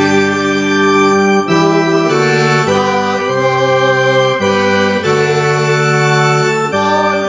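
Organ playing a hymn in held chords that change every second or so.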